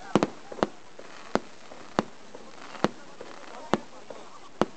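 A fireworks display with aerial shells bursting: a string of sharp bangs, about one a second, two in quick succession near the start.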